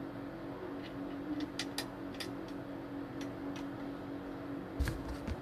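Light plastic clicks and taps from stand fan parts being handled and fitted together, a few in quick succession, then a heavier knock near the end. A steady low hum runs underneath.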